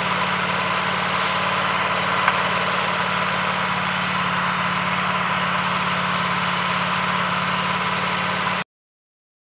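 Wood-Mizer LT15 Go sawmill's engine running steadily at idle, then cutting off suddenly near the end.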